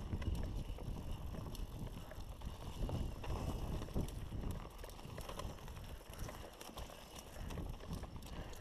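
Mountain bike ridden along a dirt singletrack: steady rumble of tyres over the ground and wind on the microphone, with scattered clicks and rattles from the bike.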